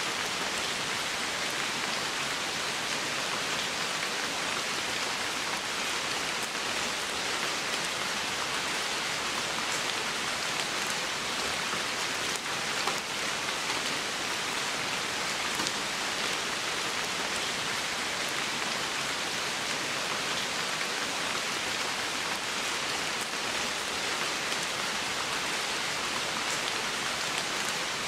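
Steady rain falling on the forest floor and its leaves: an even hiss with scattered single drops ticking through it.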